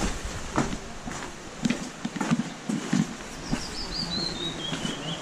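Footsteps crunching along a rocky dirt trail, about two steps a second. Past the middle, a bird sings a run of high notes that fall step by step in pitch.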